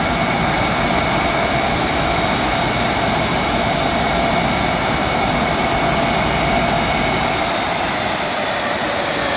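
A KAI T-50B jet's single GE F404 turbofan runs steadily as the jet taxis, a loud high whine over a rushing roar. Near the end the whine drops slightly in pitch.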